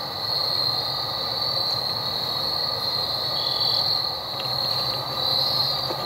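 Insect chorus in woodland: a steady, high-pitched shrill drone that swells a little now and then, over an even lower hiss.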